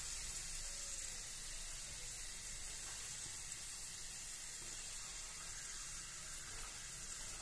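Hot oil sizzling with a steady, even hiss as ridged snack sticks deep-fry in a steel kadai.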